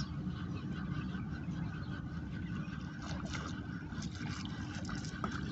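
Steady low engine-like drone, with scattered faint clicks and rustles from about three seconds in.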